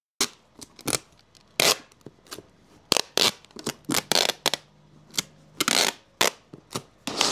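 Plastic packing materials being handled: bubble mailers and cellophane bags crinkling and rustling in a string of short, sharp crackles and scrapes. A longer continuous rasp starts near the end.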